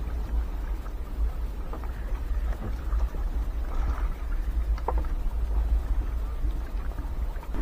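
Fish being picked out of a nylon gill net in a small boat: faint rustling of the net and light scattered knocks against the hull, over a steady low rumble.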